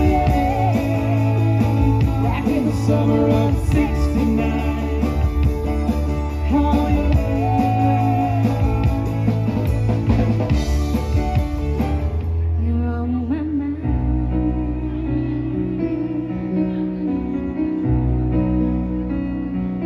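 Live band playing a song: drum kit, electric guitars, keyboards and a woman singing. About twelve seconds in the drums and cymbals stop, and a quieter stretch of held keyboard and bass notes follows.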